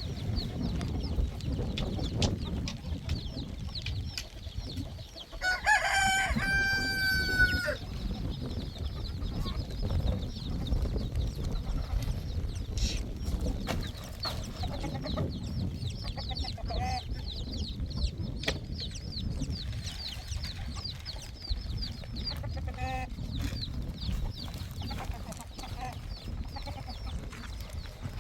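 Domestic fowl calling: one long crow about six seconds in, then a few short clucks later, over a steady low rumble.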